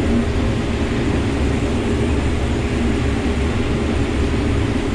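Combine harvester running steadily while harvesting corn: an even, low machine drone with a hiss of threshing and fan noise above it.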